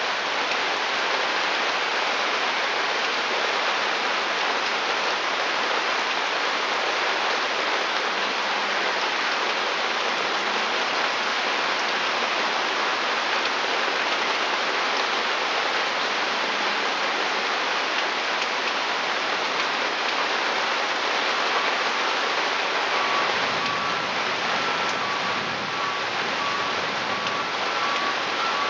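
Pouring rain falling on a wooden deck and garden: a dense, even hiss. From about two-thirds of the way through, a faint repeating electronic beep in two alternating pitches sounds behind it.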